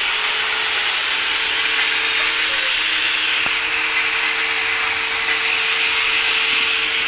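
Handheld electric cutter grinding through the old front exhaust pipe of a motorcycle silencer: a steady grinding noise with a constant motor whine, cutting off suddenly at the end as the pipe is cut through.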